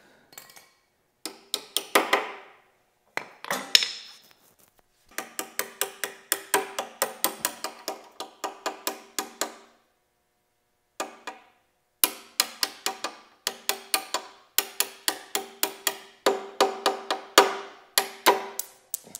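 Foot peg pivot pin on a Husqvarna Norden 901 peg mount being knocked out with a hammer: a few single metal taps, then long runs of quick ringing taps, about four a second, with a short pause near the middle.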